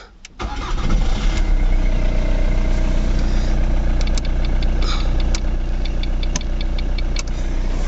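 Ford Mondeo Mk3 engine starting about half a second in, then idling steadily. A few light ticks sound over the idle near the middle.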